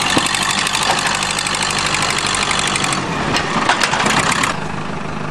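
Backhoe loader engine running as the machine drives along, with a loud, dense clattering over it. The clattering stops about four and a half seconds in, leaving the engine running more quietly.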